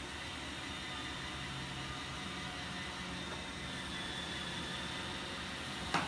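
Steady whir of electric pedestal fans and a Roomba robot vacuum running. Near the end there is one brief sharp sound as the blown rubber balloon strikes the potted cactus riding on the Roomba.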